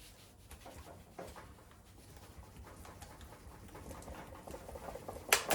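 Faint scuffing and handling as an engine part is pulled on hard by hand, then one sharp metallic click about five seconds in.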